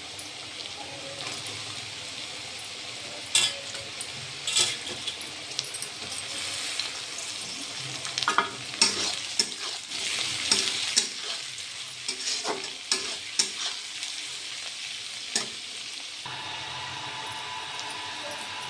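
Chow mein ingredients sizzling in a hot pan as they are stir-fried, a spatula scraping and knocking against the pan on and off through the middle. The stirring stops about two seconds before the end, leaving the steady sizzle with a faint hum.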